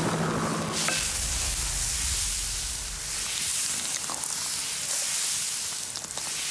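Jianbing batter sizzling on a hot round iron griddle as it is spread thin with a stick spreader, an even hiss with a few light scrapes and clicks of the spreader. A low rumble cuts off about a second in.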